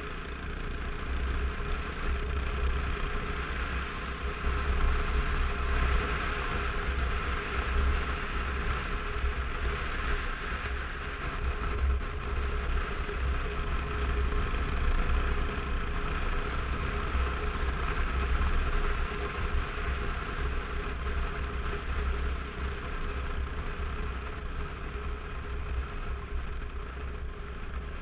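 Motorcycle engine running steadily while riding at road speed, with wind buffeting the microphone in a low, uneven rumble.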